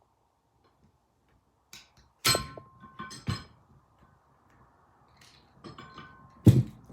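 Metal vise parts being handled and set down. One loud clank with a short metallic ring about two seconds in, a second knock about a second later, lighter clinks, and a sharp clank near the end.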